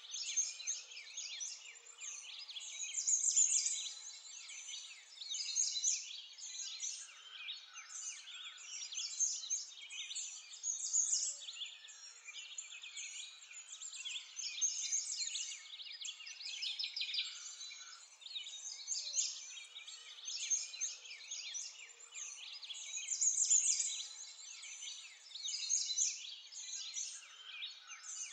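A chorus of many small birds chirping and singing, dense, steady and high-pitched.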